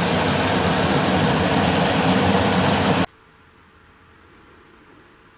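Steady rushing noise of the cooking stove and a pan of tomato sauce simmering on it. It stops abruptly about three seconds in, leaving faint room tone.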